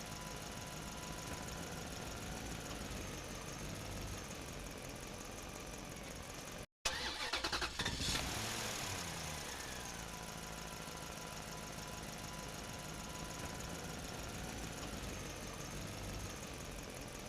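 A small engine-like drone runs steadily. About seven seconds in it cuts out for a moment, then comes back with a second of rapid clattering, falls in pitch and settles back to the steady running.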